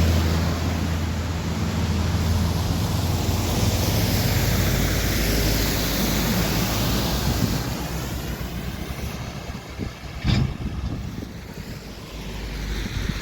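Road vehicle passing, a low engine hum with tyre noise that fades away after about eight seconds, with wind on the microphone. A single sharp knock about ten seconds in.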